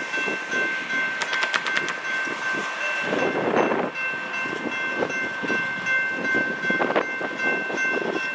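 Railroad grade-crossing warning bell ringing steadily while the crossing gate arm lowers, the signal that a train is approaching. The bell stops near the end, once the gate is down.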